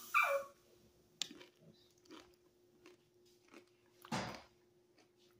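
Close-up chewing of a crispy tostada, with a few faint crunches and mouth clicks. A short falling whine comes at the very start, and a louder brief rush of noise about four seconds in.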